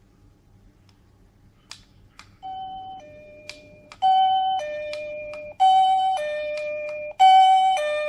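Wireless doorbell receiver playing its two-tone ding-dong chime over and over, a high note then a lower note, repeating about every one and a half seconds. The first ding-dong, about two and a half seconds in, is faint, and the chime is much louder from about four seconds in. A few faint clicks come before it.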